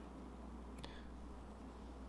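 Near silence: steady low room hum with faint hiss, and one faint tick a little under a second in.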